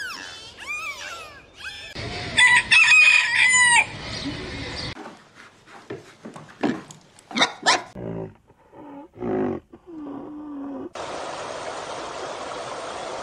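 A rooster crowing, with chickens making short clucking calls around it, in several cut-together clips. A steady hiss takes over for the last couple of seconds.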